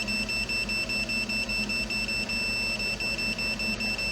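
Steady high-pitched electronic whine from the Kyosho Blizzard's brushless track motors and speed controller as the track channel is driven, holding one pitch with a faint regular flutter.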